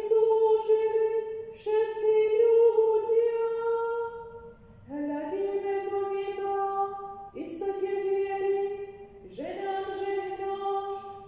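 A woman singing unaccompanied, a slow liturgical chant in phrases of long held notes.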